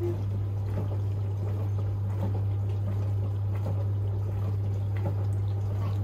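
Comfee WQP4-W2601D countertop dishwasher running its wash cycle: a steady low motor hum with water splashing inside.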